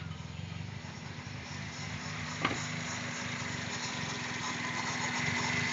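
2001 Toyota Corolla's 1.8-litre four-cylinder engine running with a steady pulsing note, from an engine that has set code P0300, a random or multiple-cylinder misfire. A sharp click comes about two and a half seconds in, after which a steady hum joins, and the sound grows slowly louder.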